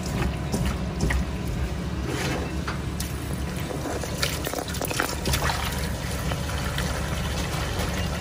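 Tap water running and splashing into a stainless-steel bowl of peeled shrimp, with wet squelching and sloshing as hands rub and rinse the shrimp in a starchy slurry. A steady low hum sits underneath.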